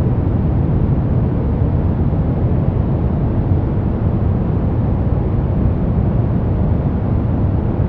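Steady deep brown noise: an even, unbroken rumble with most of its weight in the low bass, growing fainter toward the treble.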